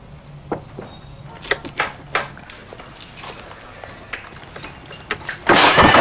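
Keys clinking and rattling in a door lock as a flat is unlocked, a few scattered clicks. Near the end comes a sudden, much louder burst of noise, like a crash.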